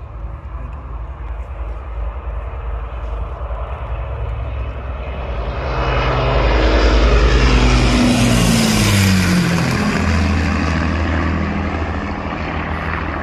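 Avro Lancaster bomber's four Rolls-Royce Merlin piston engines, a low multi-engine drone that grows louder as the aircraft flies low overhead. It peaks about seven to nine seconds in, where the engine note drops in pitch as the plane passes, then eases off.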